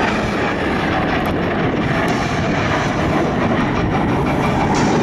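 Steady jet-engine roar from the Blue Angels' four-ship Diamond of F/A-18 Hornets as they pull up into a loop.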